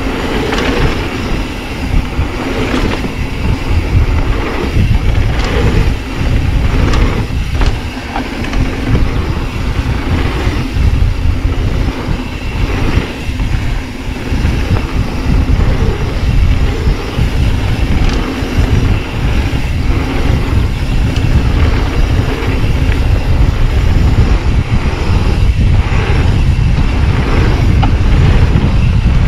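Mountain bike rolling fast down a dirt flow trail: wind buffeting the action camera's microphone over the rumble of the tyres, with frequent short knocks and rattles from the bike over bumps.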